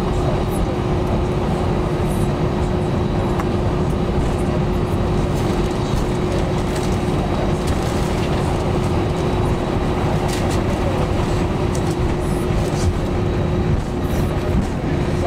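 Cabin noise inside an Airbus A320 taxiing: a steady low rumble with a constant hum, and scattered faint clicks and knocks.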